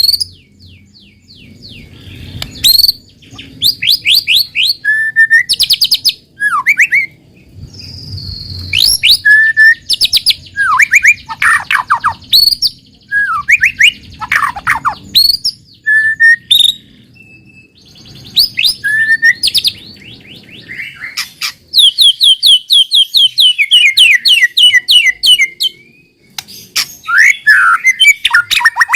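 White-rumped shama singing a long, loud, varied song. Phrases of fast repeated high notes alternate with clear whistles and downward-sliding notes, separated by short pauses.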